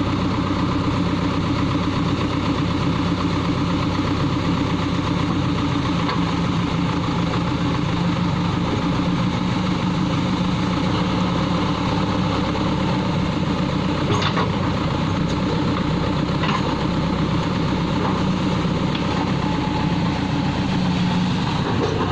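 Backhoe loader's diesel engine running steadily at one constant speed, with a couple of faint clicks about two-thirds of the way through.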